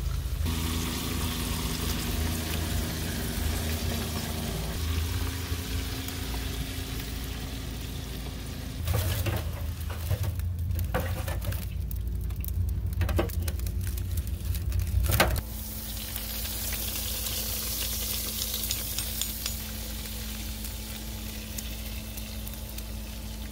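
Crackling and sizzling of the burning wood and charcoal fire in a barrel smoker, with sharp crackles through the middle. It is heard in several cut-together clips, and a steady low hum joins in the last third.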